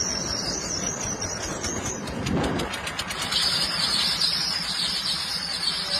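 Train running along the track: a steady rumble of wheels on rails under a high, steady hiss, with a run of rapid clicks around two to three seconds in.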